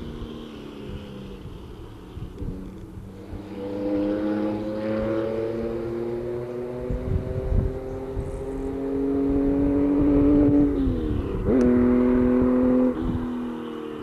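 A classic rally car's engine revving hard on a tarmac special stage, echoing off the rock faces of the gorge. Its pitch climbs steadily for several seconds, then falls away and jumps back up a couple of times near the end as the driver comes off the throttle.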